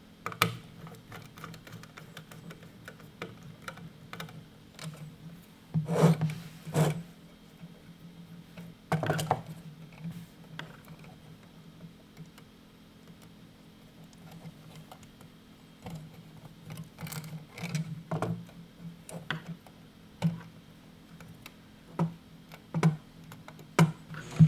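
Small screwdriver and wire ends clicking and scraping against the screw terminals and plastic housing of a Taco pump controller as thermostat wires are fitted and tightened: scattered light clicks with a few louder knocks, over a faint steady hum.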